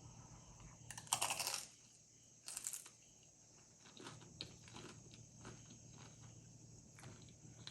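Tortilla chips of beef nachos crunching as they are handled and bitten. Two short crackling crunches come about a second in and about two and a half seconds in, followed by faint scattered light clicks.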